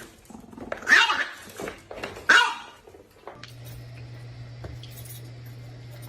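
A dog barking, with two loud barks about a second and a half apart among smaller ones. From about three seconds in, a steady low hum.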